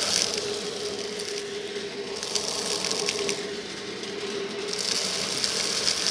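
Handheld vacuum cleaner running with a steady motor hum while its nozzle sucks up small beads, shells, sequins and glitter from a cardboard box. The debris rattles and crackles up the nozzle in bursts: at the start, again around the middle, and again from about five seconds in.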